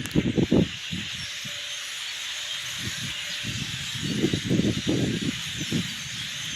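Dense, steady chatter of a huge flock of migrating birds, the kind of massed call of a blackbird flock, with irregular low rumbles underneath.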